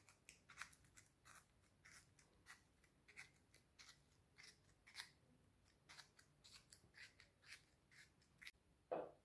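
Toothpick pricked again and again into a hollowed raw onion to pierce small holes: faint, crisp ticks at an uneven pace of about two a second, with a soft knock near the end.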